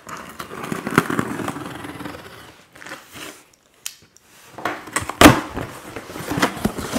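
Cardboard box being opened and handled: rustling and scraping, then a sharp knock about five seconds in and a few lighter clicks.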